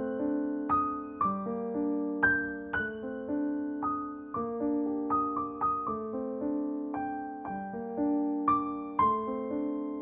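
Background music: solo piano playing a slow, gentle piece, each note or chord struck and left to fade.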